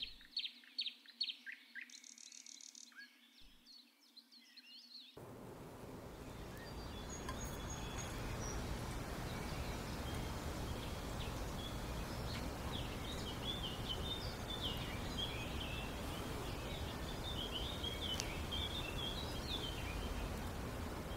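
Small birds chirping and twittering in many short high calls. About five seconds in, a steady background hiss comes up beneath them while the chirping goes on.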